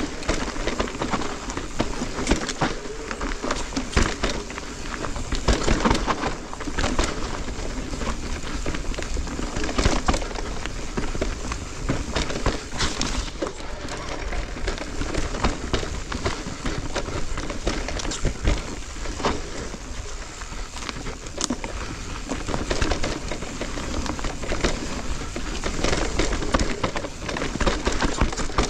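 Giant Reign E+ electric mountain bike riding down a rough, loose trail. The tyres crunch over dirt and stones, and the chain and frame clatter with many quick knocks on the bumps.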